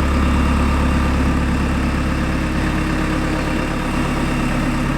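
The engine of a Hi-Lift lifting machine idling steadily, with a slight change in its low drone near the end.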